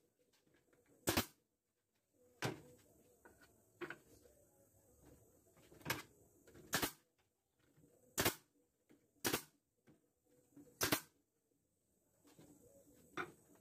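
Pneumatic brad nailer firing nails into pine slats: several sharp clacks, each with a short puff of air, at irregular intervals. Lighter knocks come from the wood being handled between shots.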